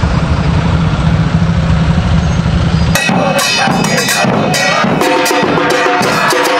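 A heavy bus and motorcycle engines give a steady low rumble. About three seconds in, a fans' street drum band takes over, with bass drum and snare strikes over held pitched notes.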